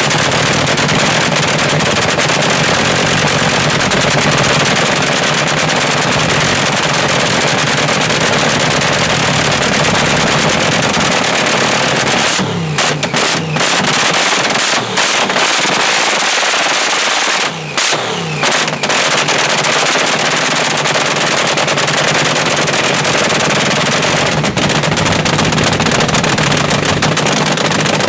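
Dragster's supercharged V8 running loud and rapid-fire through open zoomie headers, not on nitro. Twice near the middle the revs drop off briefly and then pick back up.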